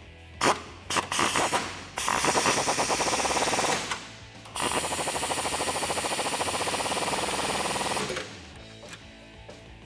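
Impact wrench hammering bracket bolts tight: a few short blips in the first two seconds, then two longer runs of rapid hammering, about two seconds and then about three and a half seconds long. Background music plays underneath.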